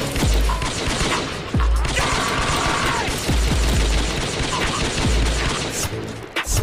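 Rapid, sustained pistol gunfire, shot after shot, with heavy low booms recurring about every second.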